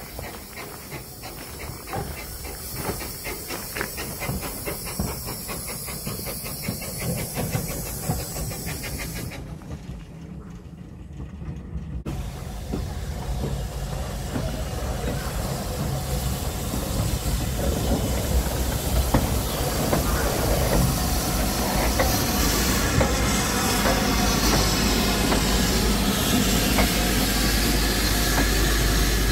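Small steam tank locomotive hissing steam. After a cut, a steam-hauled passenger train runs past close by, its rumble of wheels and carriages growing steadily louder toward the end.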